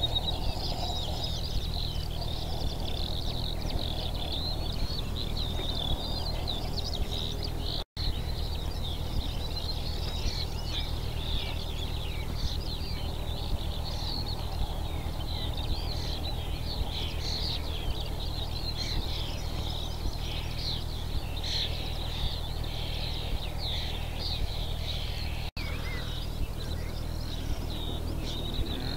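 Many small birds chirping and singing over a steady low rumble; the sound cuts out for an instant twice.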